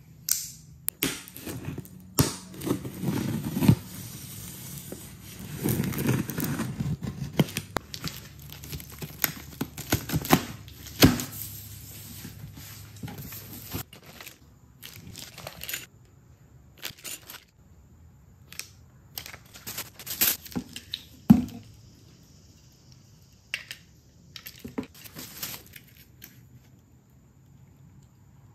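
A cardboard shipping box being cut open with a folding utility knife and unpacked: packing tape tearing, cardboard flaps and plastic wrap crinkling, with many sharp clicks and knocks of handling.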